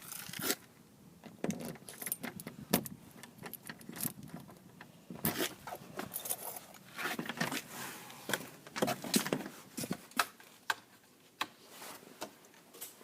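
A bunch of keys jangling and clinking as they are handled, many short irregular metallic clicks.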